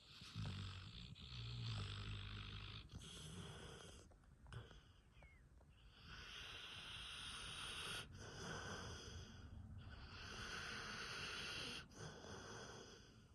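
Dog snoring: a low snore in the first few seconds, then a run of airy, hissing breaths, one roughly every two seconds.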